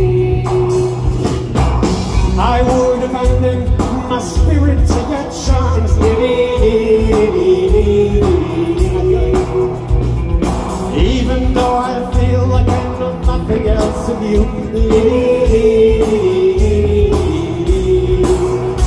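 Live rock band playing a song through a PA: electric guitars, bass and drums, with a man singing the lead vocal.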